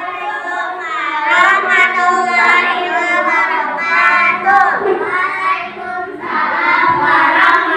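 A group of children singing together, holding wavering notes, with a brief dip about five to six seconds in.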